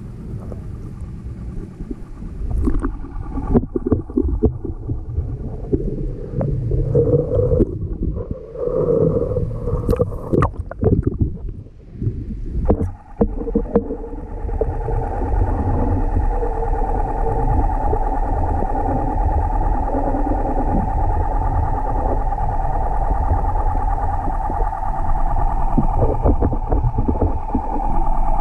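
Muffled underwater sound: irregular knocks and thumps in the first half, then from about halfway a steady boat-engine drone heard through the water.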